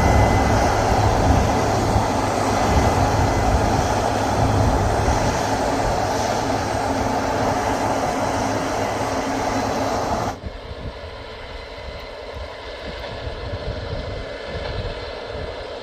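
Combine harvester running steadily, a loud dense machine noise with a low engine hum. About ten seconds in it drops abruptly to a quieter, steady running.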